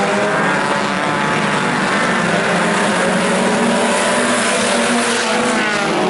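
A field of IMCA Sport Compact race cars running together on a dirt oval at caution pace, several four-cylinder engines droning at once with pitches drifting slowly up and down as the cars line up for a restart.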